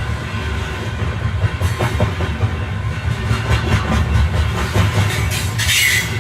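Passenger train running on the rails, heard from on board: a steady low rumble with scattered clicks from the wheels over rail joints, and a brief high wheel squeal near the end.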